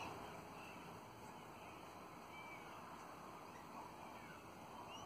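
Faint, brief chirps of Twenty-eight parrots (Australian ringnecks) feeding, a few soft calls scattered over a steady background hiss.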